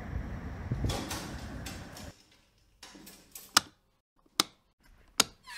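Wind rumble on the microphone for about two seconds, cut off abruptly. Then three sharp, evenly spaced sound-effect clicks, about 0.8 s apart.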